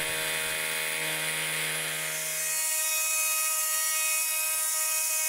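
Grizzly benchtop mini mill running, its end mill cutting four aluminium blocks at once: a steady whine with a high cutting hiss. A low hum drops out a little past halfway.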